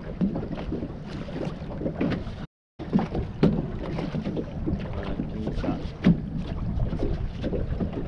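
Choppy water slapping against the hull of a small fishing boat, with wind buffeting the microphone and irregular sharp slaps, the loudest about six seconds in. The sound drops out completely for a moment a little before three seconds in.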